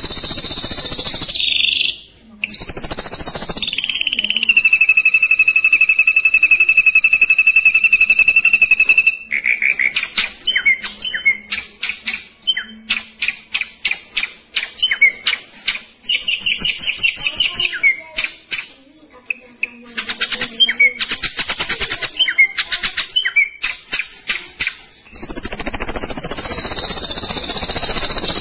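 Ashy drongo singing a varied song. It opens with harsh high buzzy notes, then holds a long, rapidly trilled whistle for about five seconds. A fast run of short, sharp chirps follows, broken by brief pauses, and harsh buzzing returns near the end.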